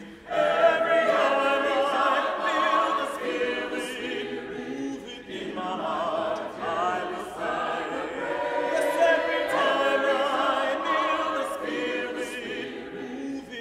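Church choir singing in several parts, holding long notes with vibrato, with a brief break between phrases about five seconds in.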